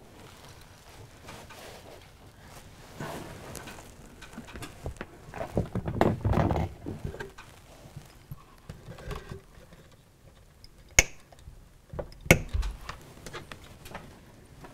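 Handling noises from hands and tools working on point motors under a model railway baseboard: scattered small clicks and rustling, a louder stretch of shuffling midway, and two sharp clicks near the end about a second apart.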